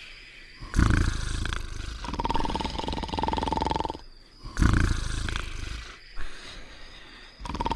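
Cartoon dogs snoring in a slow repeating cycle: a loud, rough snore about a second in and again about four and a half seconds in, each followed by a high steady whistle on the out-breath.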